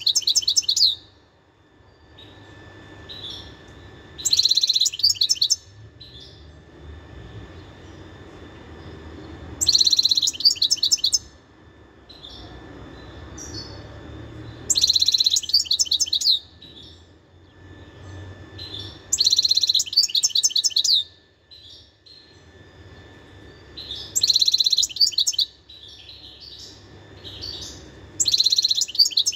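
European goldfinch singing: bursts of fast, high twittering song about a second and a half long, repeating roughly every five seconds, with softer notes in between.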